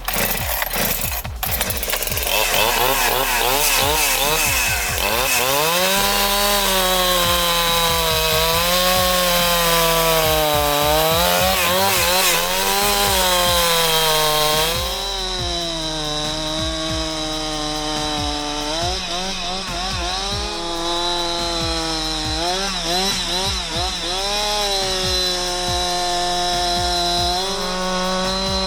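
Rebuilt Husqvarna 372XP chainsaw, built from Chinese aftermarket parts, running at high revs while bucking logs into rounds. Its pitch repeatedly dips under load and climbs back. The owner thinks the high-speed H screw is set on the lean side.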